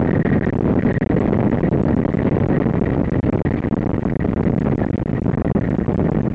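Steady rush of airflow and wind noise on the microphone in the cockpit of an L-13 Blaník glider landing on grass, with a faint high steady tone through most of it. Small knocks join in the second half as the glider rolls over the grass.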